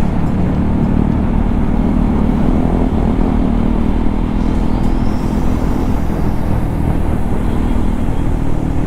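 KTM Duke 390's single-cylinder engine running steadily and loud while the bike is ridden, its exhaust open with the dB killer removed.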